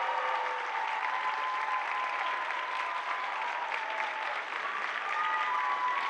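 Audience applauding, with a few long held tones sounding over the clapping.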